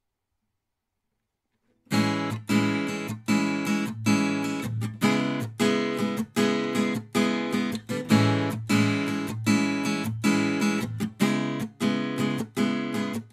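Song intro: a guitar strumming chords in a steady, driving rhythm, starting about two seconds in after silence.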